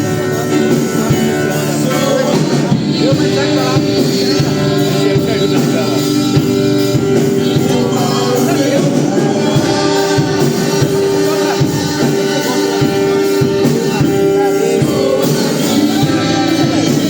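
Worship music: singing over a steady instrumental accompaniment with long held notes.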